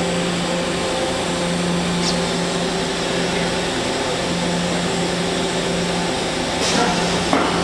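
Mazak Nexus 510C-II vertical machining center running, a steady mechanical hum with several constant tones from its motors and drives. Near the end, a short burst of mechanical clatter as an automatic tool change begins.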